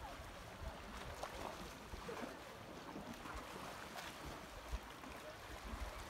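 Small sea waves lapping gently over shallow rocks and sand, with wind rumbling on the microphone.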